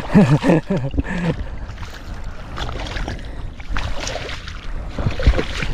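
Wading through mud and shallow water: uneven sloshing and squelching steps with a few short knocks. A voice is heard briefly at the start.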